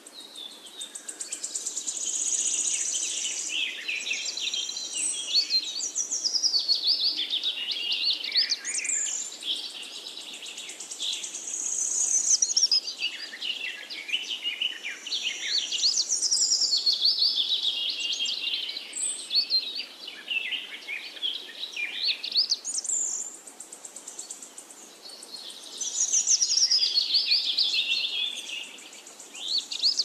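Birds chirping and singing continuously in long, high-pitched phrases of rapid trills and falling sweeps that come round again every several seconds.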